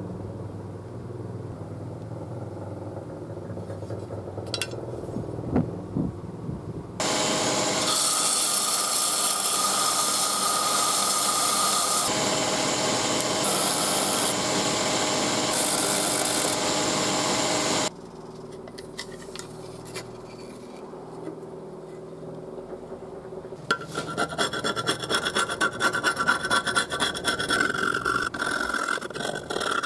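A belt grinder running steadily while a pitted steel cleaver blade is ground flat on its abrasive belt, starting and stopping abruptly. Near the end comes rapid back-and-forth scratching as a hand-held abrasive is rubbed across the blade's face.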